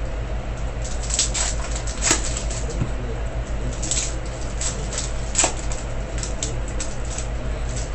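Foil wrappers of SPx hockey card packs crinkling and crackling in short bursts as they are torn open by hand and the cards slid out, over a steady low hum.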